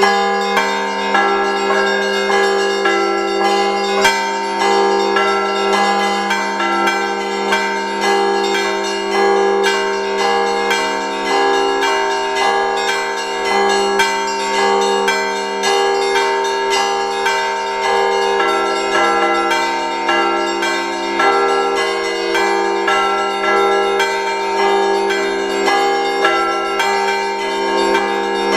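Russian Orthodox church bells rung by hand after the Liturgy: many bells of different pitches struck in a continuous rhythmic pattern over a steady low hum from the larger bells.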